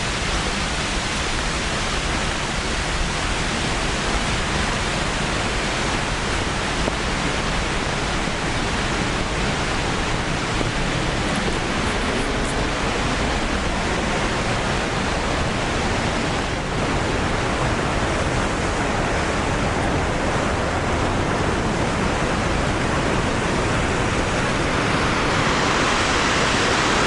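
Kegon Falls thundering: a steady, dense rush of falling water, running full after a day of rain, growing a little louder near the end.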